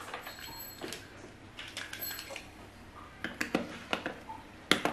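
Plastic toy ice cream scoop and plastic ice cream pieces being handled on a plastic toy stand: light clicks and clatters, sparse at first and more frequent in the last two seconds, with one sharper knock near the end.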